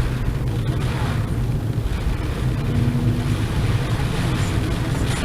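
Torrential cloudburst rain pouring down in a steady rush, with a deep rumble underneath.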